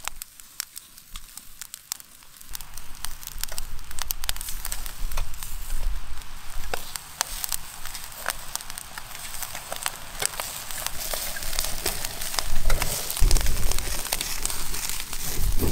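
Charcoal fire crackling and popping under whole chickens roasting on green stalks, with a hiss that builds after a couple of seconds. A low rumble comes in near the end.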